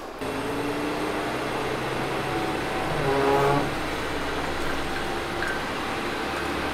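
Diesel train engine idling at the platform, a steady hum with a low tone. A brief higher-pitched note sounds about three seconds in.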